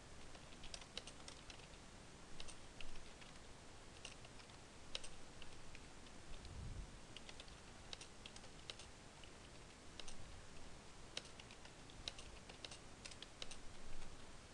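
Computer keyboard typing, faint: runs of irregular keystrokes with short pauses between them.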